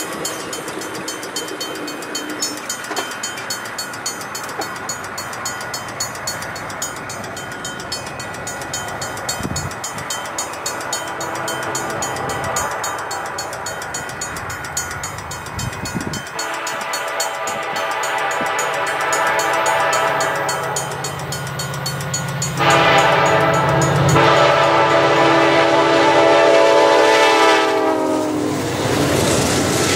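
Freight train led by a CN SD70M-2 diesel locomotive drawing near with a rising rumble, then sounding its horn in two long blasts, the second louder, before the locomotives pass close by near the end.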